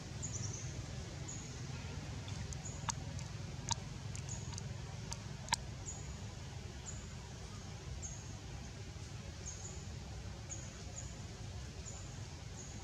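Steady low rumble of outdoor background noise, with short, very high chirps recurring every second or so. Three or four sharp clicks come in the middle.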